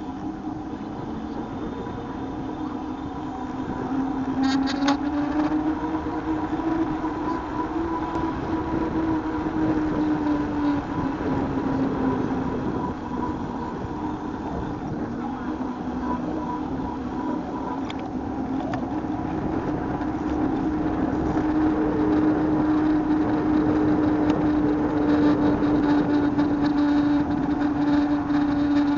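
A vehicle motor running steadily, its hum drifting slowly up and down in pitch, over a constant rushing noise, with a few brief ticks about five seconds in.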